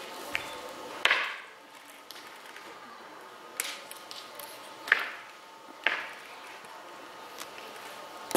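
A few sharp, separate knocks or taps, five spread irregularly over several seconds, each with a short ringing tail.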